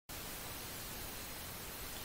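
Steady, faint hiss of an open recording microphone: background noise with no other sound.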